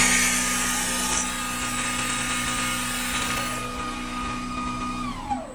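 CNC wood lathe turning a workpiece: the cutter scrapes the spinning wood over the steady whine of the spindle drive. The cutting noise stops after about three and a half seconds, and near the end the whine falls in pitch as the spindle winds down and stops.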